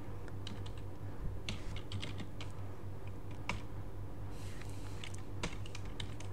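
Computer keyboard keystrokes, scattered sharp clicks as a terminal command is typed out and entered, over a steady low hum. About four seconds in comes a run of quicker keystrokes as a password is typed.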